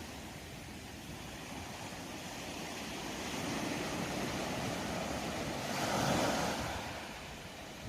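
Sea waves washing onto the shore: a steady surf hiss that swells as a wave breaks about six seconds in, then falls back.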